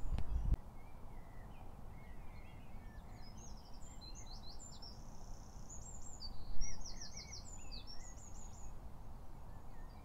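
Songbirds singing in riverside trees and reeds: short high chirps and whistles, with a quick run of repeated notes about six and a half seconds in, over a faint steady outdoor hiss. A low rumble at the very start cuts off about half a second in.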